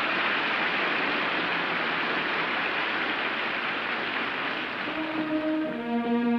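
Audience applause in an old live opera recording, a steady rain-like clatter. About five seconds in, orchestral brass begins sounding held notes through it.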